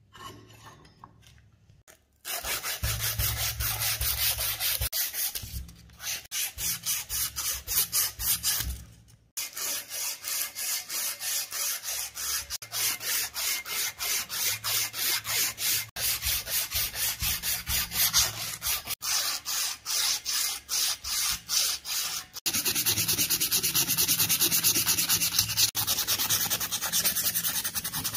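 Abrasive cloth strip drawn back and forth across a steel pistol part, rubbing off rust and old finish in quick, even strokes, about three or four a second, with short pauses. Late on, the rubbing turns steadier as a small steel cylinder is sanded.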